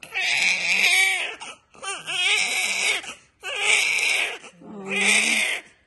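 Newborn baby crying moments after birth: four cries in a row, each about a second long, with short pauses for breath between.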